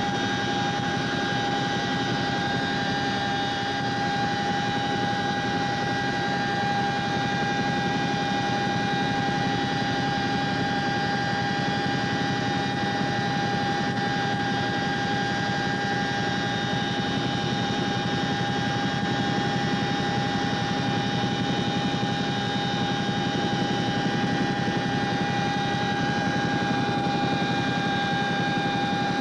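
CH-47 Chinook helicopter in flight, heard from inside its cabin with the rear ramp open: a loud, steady rumble of engines and rotors with a steady high-pitched whine over it.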